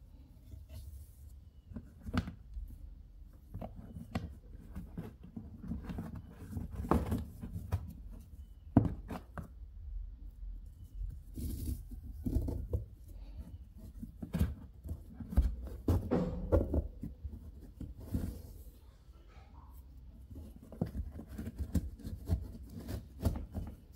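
Twisted rope being handled and tied into knots: irregular rustling and scraping as the rope is pulled through loops and cinched, with scattered light clicks and knocks.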